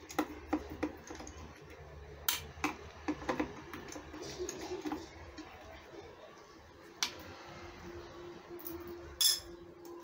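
Scattered light clicks and taps of a small screwdriver and wires against the plastic base of a Fantom vacuum cleaner being taken apart. The sharpest taps come a little over two seconds in, about seven seconds in and near the end.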